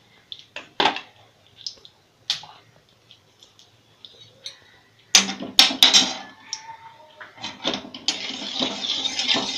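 A steel spatula clinking against a large steel kadhai in a few sharp knocks, with a quick cluster of them about five seconds in. Near the end it stirs melting vanaspati ghee in the pan with a steady hiss.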